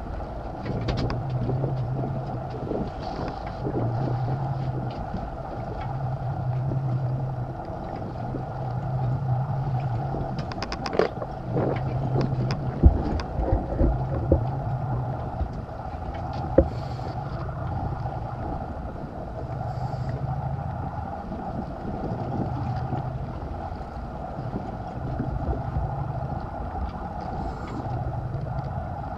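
Steady running noise of a fishing boat at sea, with wind and water. A low hum swells and fades about every two and a half seconds, and a few sharp knocks come midway.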